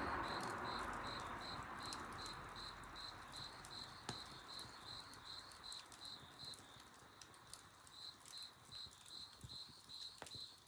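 A cricket chirping in an even series of high pulses, about three a second, with a short pause just past the middle. Faint crackles from the bonfire come now and then, over the last of a song fading out at the start.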